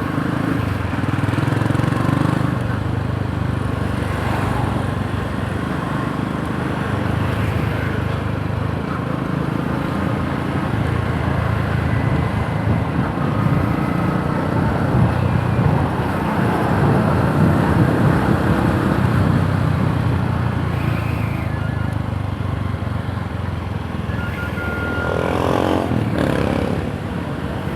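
Yamaha YTX 125's single-cylinder four-stroke engine running while the motorcycle is ridden, its note rising and falling with the throttle. A brief higher-pitched sound that bends in pitch comes near the end.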